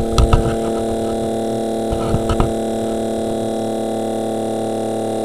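Small electric motor running on supercapacitors, a steady hum of several tones, with a few short clicks near the start and about two seconds in.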